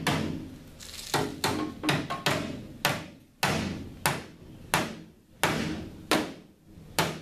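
Hammer blows on the sheet-metal front end of a 1978 Datsun 280Z: about ten sharp, ringing strikes at an uneven pace, spacing out to roughly one every 0.7 seconds in the second half.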